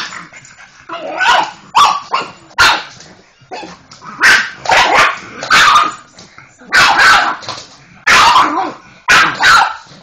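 A pug barking over and over, a dozen or so sharp barks in uneven bunches with short gaps between, the dog worked up at a vacuum cleaner.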